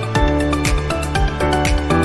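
Electronic music with a steady beat of about two beats a second, over sustained synth chords and a bass line.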